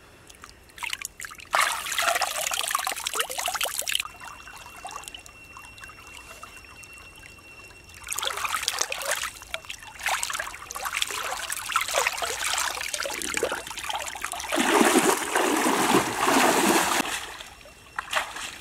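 Water splashing and trickling as a king crab is rinsed and handled by hand in a shallow muddy pool: a short spell of splashing, a lull, then a longer one that is heaviest near the end.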